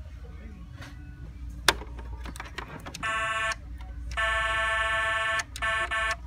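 Battat Driven toy dump truck's electronic horn sound effect, set off by pressing the steering wheel in the cab: three steady honks from the toy's small speaker, the middle one longest. A sharp click comes shortly before the first honk.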